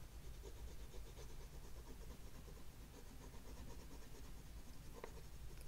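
Oil pastel stick rubbed flat on its side across a painted wooden panel: faint, scratchy rubbing in quick repeated strokes, with one sharper tick about five seconds in.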